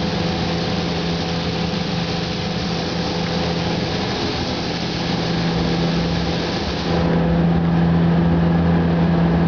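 Air spray gun hissing steadily as it lays down clear coat, over a steady low machine hum. About seven seconds in the hiss thins out and the hum grows louder.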